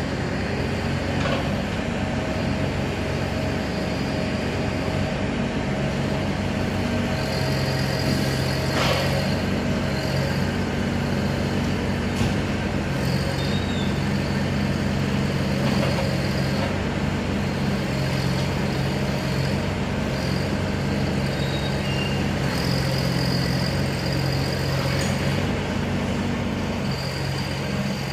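Mini excavator's Yanmar diesel engine running, its hum stepping up in pitch and settling back several times, with a high whine coming and going and a few sharp knocks.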